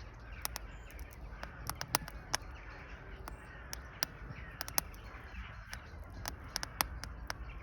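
Wood fire crackling in a fireplace: irregular sharp pops and snaps, several to a second, over a steady low rush of the flames.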